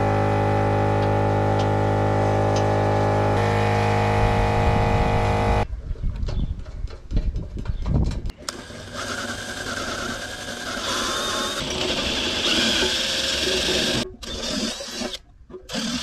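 Held background music chords for about the first five or six seconds. Then knocks and clatter as a steel oil pan is handled against a wooden sawhorse, followed by a steady rushing noise.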